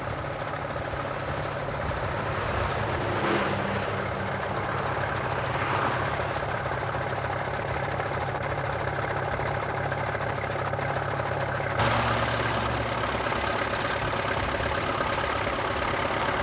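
Vintage tractor engine idling steadily. About twelve seconds in the sound cuts abruptly to a slightly louder, different engine note.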